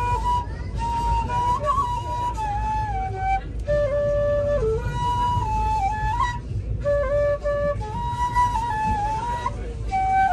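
Bamboo bansuri (side-blown flute) playing a slow, stepwise melody in phrases, with brief breaths between them, over a low steady rumble.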